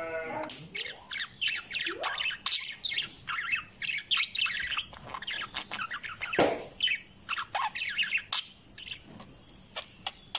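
Several parakeets chirping in quick, overlapping calls, broken by a few louder, harsher squawks.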